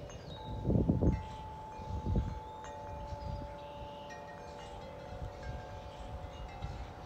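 Wind chime ringing: several tubes sounding long, overlapping notes of different pitches, a new note joining about three seconds in. Gusts of wind buffet the microphone about a second and two seconds in.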